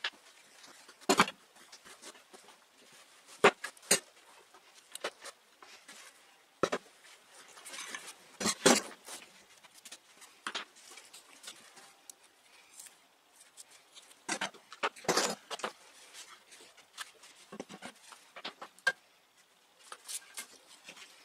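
Hand tools, a circular saw and pine boards being set down and moved on an OSB workbench: irregular knocks and clatters of wood and metal on the board, with handling rustle between them.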